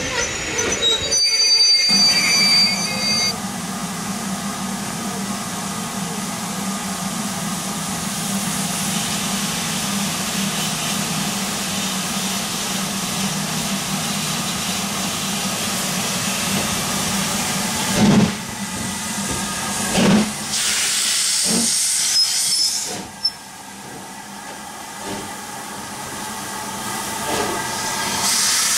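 Railway coaches rolling by briefly at the start, then a steady low hum under a hiss, broken by two loud knocks about two seconds apart. Near the end the hiss swells as an LMS Black Five 4-6-0 steam locomotive creeps up with its cylinder drain cocks blowing steam.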